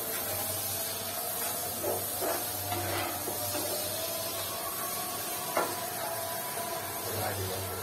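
Onion and spice masala sizzling in hot oil in a nonstick pan while being stirred with a plastic spatula, with a few short scrapes of the spatula. The spices are being fried (bhuna) until the oil separates.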